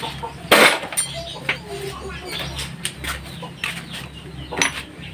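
A loud clatter about half a second in, then a few scattered sharp knocks over a steady low hum, with chickens clucking in the background.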